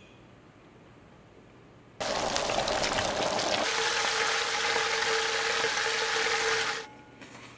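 Battered chicken deep-frying in a pot of hot oil: a loud, steady sizzle that starts suddenly about two seconds in, with a steady low tone under it in its second half, and cuts off near the end.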